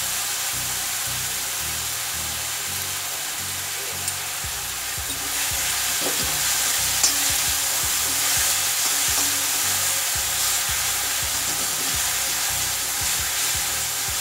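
Onions, capsicum and tomato puree sizzling in oil in a kadai, with a metal spatula stirring and scraping the pan. The sizzle is steady, and the stirring scrapes get a little louder about five seconds in.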